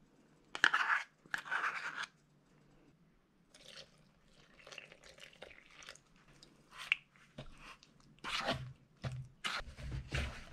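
A spoon scraping sticky sourdough starter out of a measuring cup into a bowl of flour, two short scrapes about a second in. Then, from about three quarters of the way through, hands squishing and working wet bread dough in the bowl, with dull knocks of the bowl against the board.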